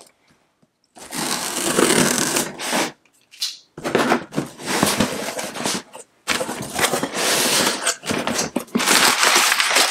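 A cardboard shipping box being opened: packing tape cut with scissors and pulled, the flaps folded back, and crumpled brown packing paper rustling, in three long bursts of scraping, rustling noise.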